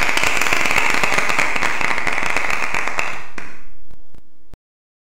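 Crackling, sparkler-like sound effect of an animated channel intro: a dense hiss of tiny crackles, fading after about three and a half seconds and cutting off suddenly near the end.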